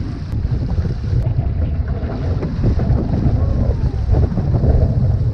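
Wind buffeting the microphone in a loud, steady rumble. Under it, water rushes and splashes along a one-person outrigger canoe's hull and ama as it runs downwind over choppy swells.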